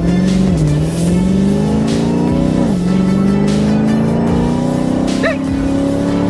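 Roughly 1,000-horsepower car engine pulling hard at full throttle, its pitch climbing steadily through each gear and dropping quickly at two upshifts, about half a second and nearly three seconds in.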